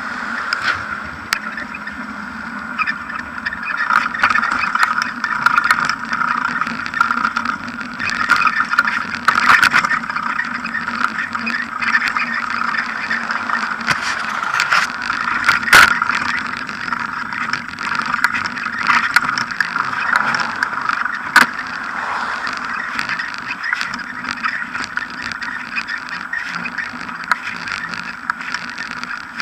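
Bicycle ride noise picked up by a bike-mounted action camera: the front tyre rolling over paving with a steady hum, and frequent sharp knocks and rattles as the bike goes over bumps, the loudest about 16 and 21 seconds in.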